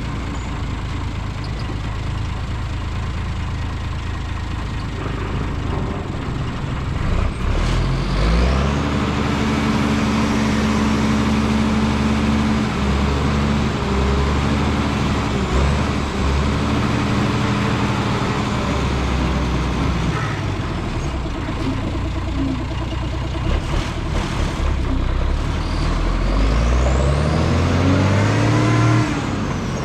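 Diesel engine of a 6x6 dump truck running: it revs up about a quarter of the way in, holds steady at higher revs for about twelve seconds, drops back, then climbs again in a rising sweep near the end.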